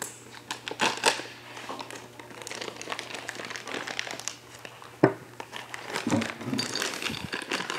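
Irregular rustling and clicking of parts being handled while a rubber grip and handlebar controls are fitted, with one sharp knock about five seconds in.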